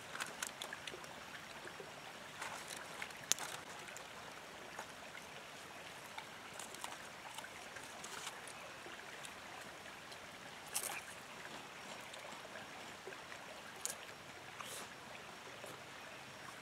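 Creek water running steadily, with a few scattered sharp clicks and small rustles.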